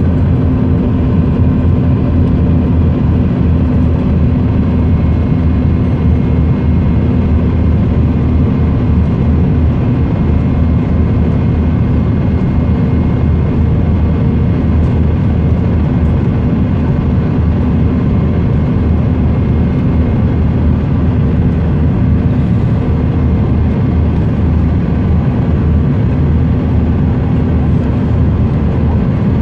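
Steady cabin noise of a jet airliner descending on approach, heard from a window seat over the wing. It is a loud, even rush of engine and airflow noise with a deep hum underneath and a few faint steady tones.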